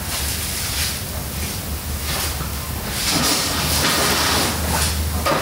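Rustling and handling noise from motorcycle wheel rims being lifted and moved on a paper-covered bench, loudest about three to five seconds in, over a steady low hum.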